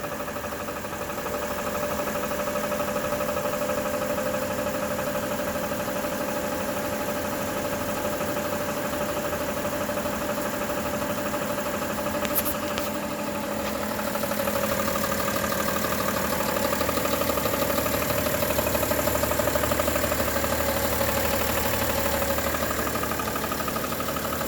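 2011 BMW 335d's 3.0-litre twin-turbo straight-six diesel idling with a steady, rhythmic ticking, the sign of a failing harmonic balancer. It gets a little louder about fourteen seconds in.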